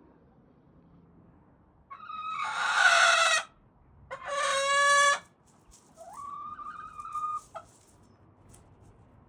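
Leghorn hen giving three long, loud calls, the third quieter: the noisy calling of a hen that wants to lay.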